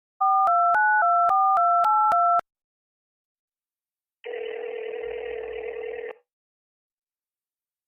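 Touch-tone telephone keypad dialing a number: eight quick two-note key tones in about two seconds. After a pause of about two seconds, one ringback tone of about two seconds, heard down the line as the call rings.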